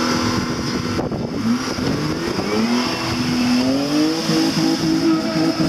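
Mercedes G off-roader's engine revving under load as it pushes through deep mud. The pitch climbs steadily from about a second and a half in, then holds high, over a rough churning noise from the tyres in the mud.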